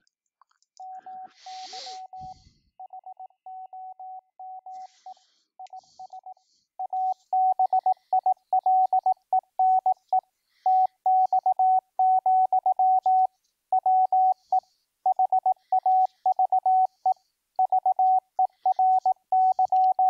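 Morse code (CW) at 18 words per minute, generated by FLDigi as a single tone of about 750 Hz keyed on and off, spelling out the typed practice text 'MY HOME IS ABILENE TX, WE HAVE VERY'. The tone gets clearly louder about seven seconds in.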